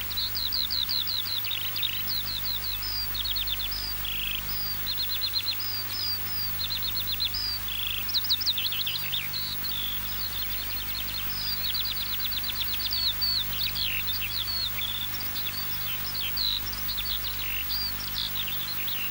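Songbirds singing: a busy, overlapping run of quick high chirps, trills and short falling notes, over a faint steady low hum.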